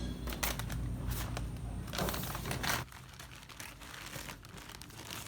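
Packaging being crinkled and handled, a dense crackling for the first three seconds or so, over a low steady hum, then lighter scattered rustles and clicks.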